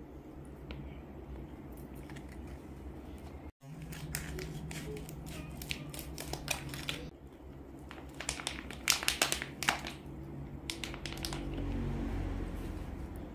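Plastic snack packets crinkling as they are handled, and scissors snipping one open. Clusters of sharp crinkles and snips come over a low steady hum, loudest about nine seconds in.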